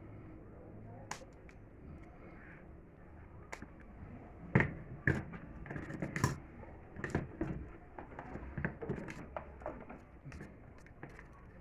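Irregular sharp clicks and knocks, several in quick succession from about four seconds in, as of the fan's parts being handled and fitted together.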